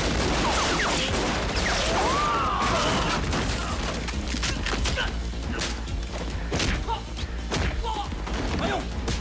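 Action-film fight soundtrack: a run of crash and hit effects, with wood breaking, over background music.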